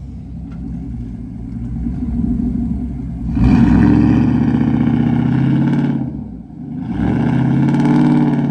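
2012 GMC Sierra 1500 4x4 pickup engine rumbling low, then revving hard twice, about three seconds and then a second and a half, with a short dip between, as the rear tyre spins in loose sand: the truck is stuck.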